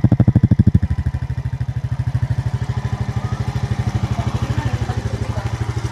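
Small motorcycle engine idling steadily on a test run after reassembly, a rapid even exhaust beat, a little louder for the first second before settling.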